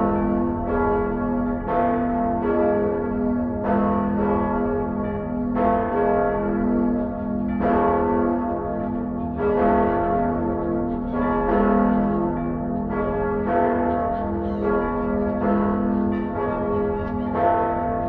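Church bells ringing in a continuous peal, a new strike arriving every half second to a second, each ringing on into the next, over a low rumble.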